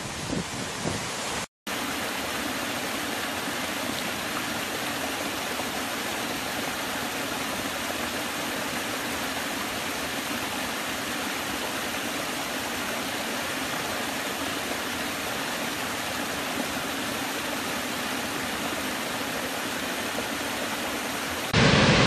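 Forest stream spilling over low rock steps in a small cascade: a steady, even rush of water. It opens with the last second or so of wind and rushing river water, cut by a brief dropout. Near the end a much louder rush from a large waterfall cuts in.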